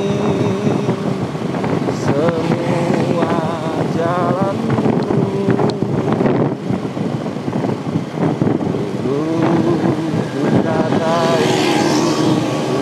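A spiritual song with a wavering, vibrato singing voice plays over the steady rush of wind and motorbike road noise.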